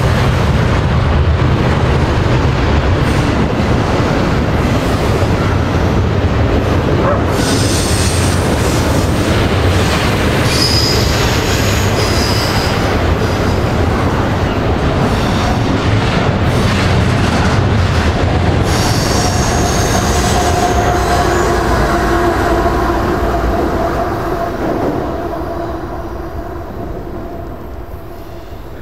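Freight train rolling past: a steady rumble and clatter of wheels on rail, with high-pitched wheel squeal that comes and goes. The sound fades over the last few seconds as the train moves away.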